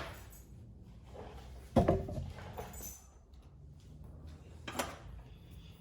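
Loose steel sockets clinking and knocking as they are handled: a loud knock about two seconds in with a brief metallic ring, and a lighter click near the end.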